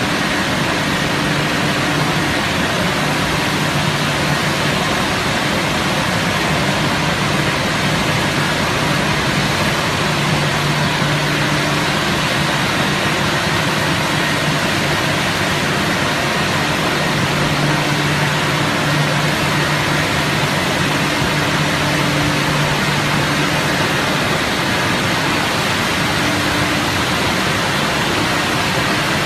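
Leisuwash 360 touchless car wash machine at work: a steady hiss of high-pressure water spraying, over a low pump-motor hum that swells and fades every few seconds.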